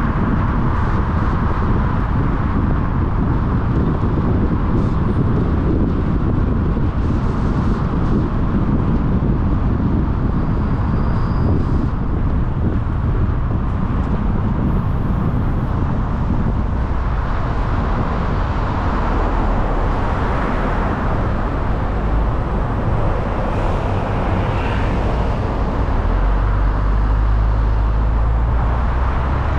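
Steady road noise of a car driving: engine and tyre rumble, growing deeper and stronger near the end.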